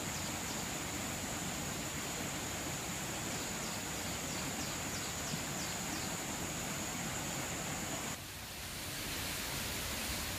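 Outdoor forest ambience: a steady high-pitched insect drone over an even hiss, with a few faint chirps near the middle. The drone stops abruptly about eight seconds in, leaving only the hiss.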